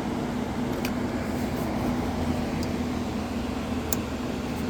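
Steady mechanical hum at an even pitch over a background rush, with a few faint light clicks about a second in and near the end.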